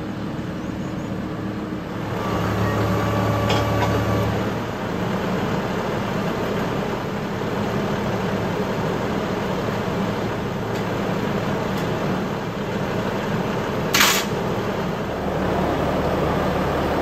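John Deere utility tractor's diesel engine running steadily as it works a front loader grapple loaded with wooden fence posts. A brief sharp noise cuts through about fourteen seconds in.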